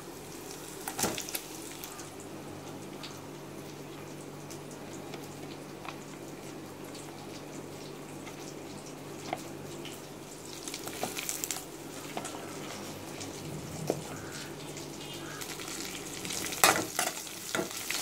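Sliced onions sizzling in hot oil in a metal kadai as they are sautéed with tempered spices, with a metal spoon scraping and stirring them now and then. The stirring gets busier and louder near the end.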